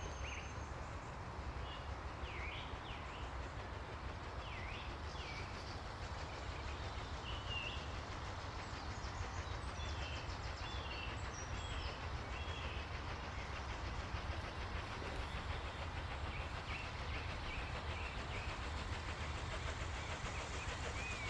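Small steam tank locomotive coming closer along the line, heard as a steady low rumble that slowly grows louder. Birds chirp now and then.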